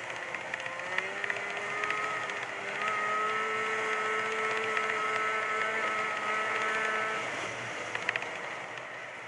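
Snowmobile engine running at speed, its note holding steady with two small rises in pitch, then easing off about seven seconds in as the throttle is let go. A couple of sharp clicks follow near the end.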